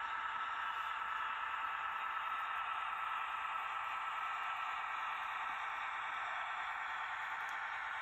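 Small model diesel shunting locomotive's electric motor and gearing running steadily as it creeps slowly along the track, a faint even hiss-like hum.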